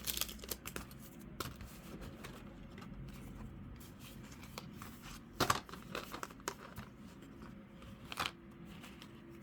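Trading cards and pack wrappers being handled and laid out on a table: scattered light rustles and clicks, with sharper snaps near the start, about five and a half seconds in and about eight seconds in.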